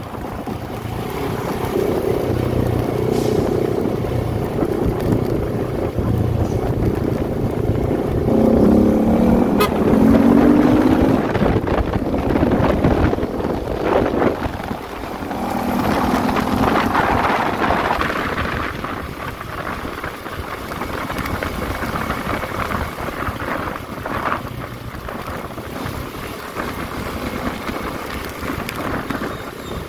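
Motorcycle engine running under way, a CFMOTO 300SR single-cylinder, with wind buffeting the microphone. The engine note climbs in pitch about eight to ten seconds in and shifts again around sixteen seconds.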